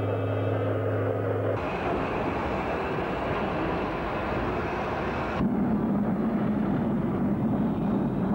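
Steam locomotive on the move: a steady low hum at the start gives way to continuous running noise about one and a half seconds in, which turns louder and deeper about five seconds in.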